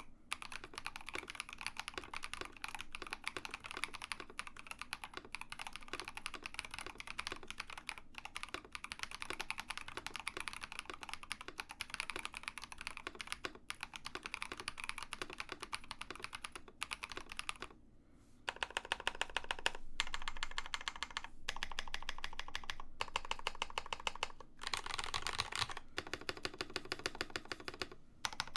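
Fast, continuous typing on a mechanical keyboard with Builtbynim linear switches (long-pole POM stem, polycarbonate bottom housing, nylon top housing), giving a clacky keystroke sound. About two-thirds of the way through there is a short pause, after which the keystrokes come louder.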